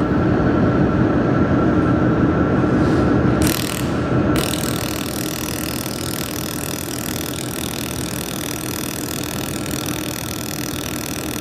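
Handheld laser welder: a steady machine hum at first. About three and a half seconds in, a steady bright hiss starts as the welding head fires along a fillet joint between two metal sheets, and it keeps on.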